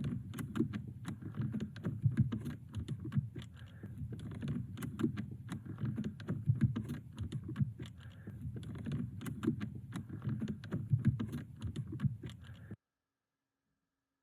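Rapid, irregular clicking and rattling over an uneven low rumble, cutting off suddenly near the end.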